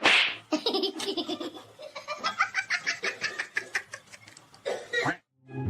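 People laughing in short repeated bursts, after a brief rush of noise right at the start.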